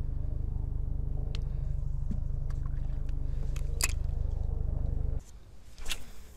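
A boat motor running with a steady low hum that cuts off suddenly about five seconds in, with a sharp click near the middle and another just after it stops.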